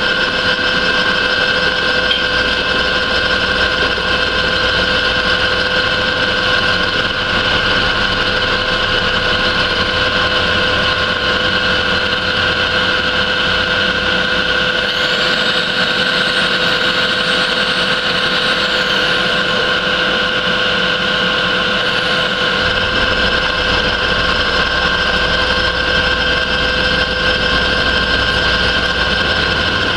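Milling machine spindle running a 3-flute carbide end mill as it skims the faces of nuts held in the vise, the table moving under power feed: a loud, steady whine. A higher tone joins it for a few seconds about halfway through, and the low rumble shifts a little after that.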